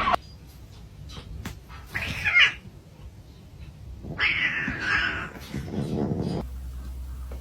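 A cat calling loudly twice, briefly about two seconds in and longer about four seconds in. Near the end a steady low hum comes in.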